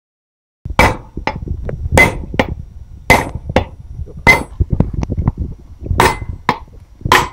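Hammer blows knocking the old wheel bearing's outer race out of a steering knuckle: about a dozen sharp metallic strikes, loud and lighter ones alternating, each with a brief ring, starting under a second in.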